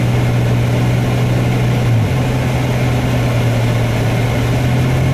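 Steady drone of a car's engine and road noise heard inside the cabin while driving on the highway. The low hum shifts slightly in pitch about two seconds in.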